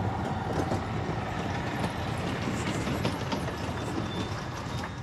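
A vehicle running, with dense rattling and clattering over a steady rumble.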